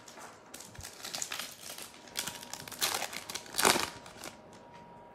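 Plastic trading-card pack wrapper crinkling and rustling as it is handled, in irregular crackly bursts, the loudest a little over halfway through.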